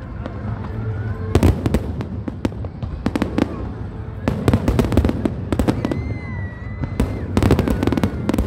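Fireworks display: clusters of rapid crackling bangs every second or two over a steady low rumble, with a whistling firework about six seconds in.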